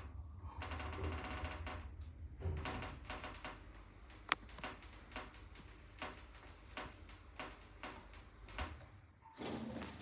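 Passenger lift running: a low hum with scattered mechanical clicks and ticks, one sharp click about four seconds in; the hum stops near the end.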